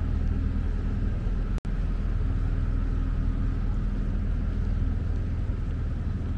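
Steady low engine hum with a few fixed tones, over a faint background of town noise; all sound drops out for an instant about one and a half seconds in.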